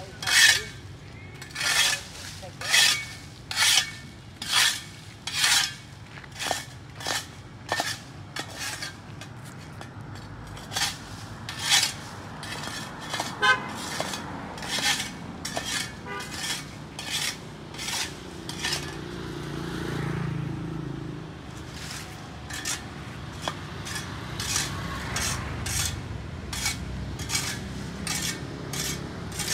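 Repeated scraping strokes of a hand tool across sidewalk pavement, clearing caked dirt and grass. The strokes come about once a second and grow quicker and closer together near the end. A vehicle passes with a low hum about two-thirds of the way through.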